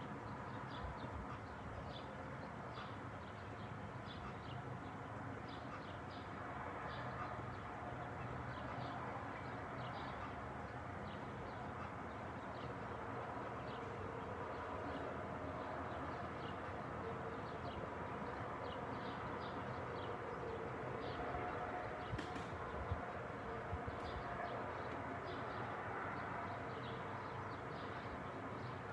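Small birds chirping over and over, short high chirps scattered throughout, over a steady low background rumble.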